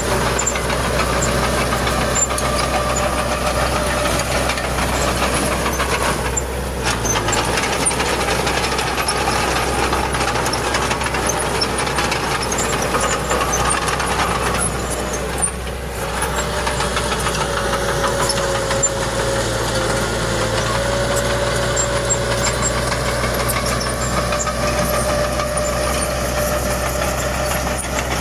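Bulldozer's diesel engine running steadily as it works, with two brief dips in the sound about 6 and 15 seconds in and a shift in its low note about 7 and 18 seconds in.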